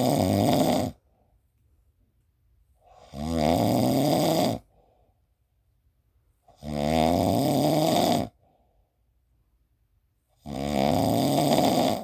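Snoring in a slow, even rhythm: a long snore every three and a half to four seconds, each about a second and a half, with a faint breath after each one.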